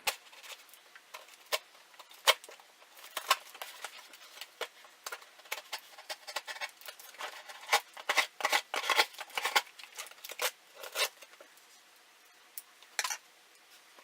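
A shipping package being opened by hand: irregular crinkling, rustling and sharp clicks of packaging material, with a quieter pause near the end.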